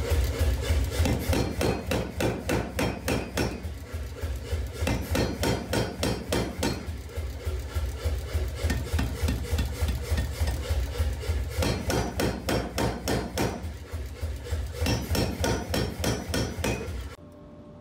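Power hammer striking a red-hot steel knife blank in fast, even blows, several a second, in runs of a few seconds with short gaps, over the machine's steady hum. The sound cuts off suddenly near the end.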